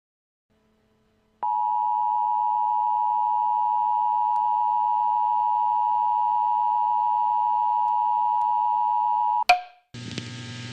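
Emergency Alert System attention tone: a loud, steady high tone that starts abruptly and holds for about eight seconds, then cuts off with a sharp click. A steady hum with hiss follows near the end.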